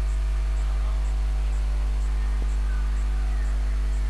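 Steady low electrical hum, mains hum on the recording, with an even hiss over it.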